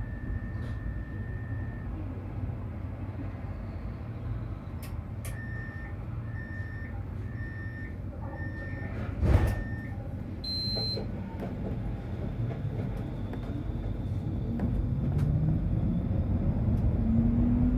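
Tram door-warning signal: a held tone, then a run of about five short beeps roughly a second apart, with a loud thud around nine seconds in and a short higher beep just after. The tram's traction motors then start with a rising whine, louder near the end as it pulls away.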